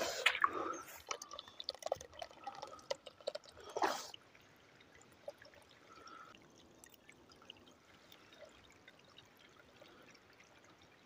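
Footsteps and rustling through wet, soggy undergrowth for about four seconds, with irregular clicks and squelches. After that it falls to near silence with a few faint ticks.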